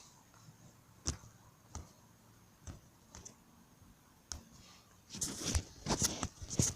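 Handling noise: a few light, separate clicks and knocks about a second apart, then a busier run of louder clicks and rustling near the end.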